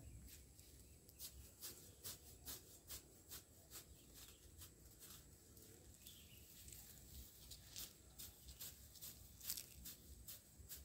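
Near silence with faint, irregular crinkling and rustling ticks of durian fruit being wrapped and tied in plastic up in the tree, several a second.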